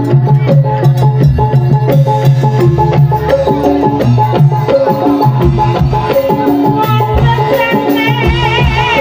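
Live Javanese gamelan ensemble playing music for a jathilan horse dance: layered pitched gong-chime and metallophone notes over steady drum beats. Near the end a wavering high melody line with vibrato joins in.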